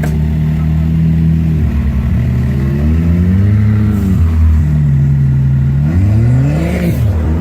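Can-Am Maverick X3 side-by-side's turbocharged three-cylinder engine running, holding a steady speed, then revving up and dropping back twice.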